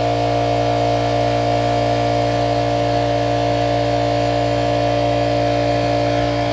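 Small air compressor running steadily, a constant motor hum, building its tank pressure back up between blowout cycles.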